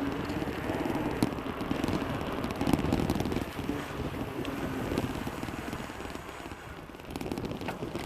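Wind buffeting the microphone as a steady rumbling noise, with a few sharp clicks and rattles.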